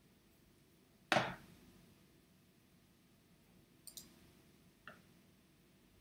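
A sharp tap about a second in, the loudest sound, then a few faint clicks near four and five seconds, typical of computer mouse clicks while navigating a web page.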